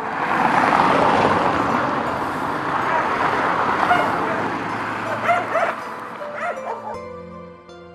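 A steady rushing noise of night street sound, with a dog barking several times in short yaps from about four to six and a half seconds in. Soft background music comes back near the end.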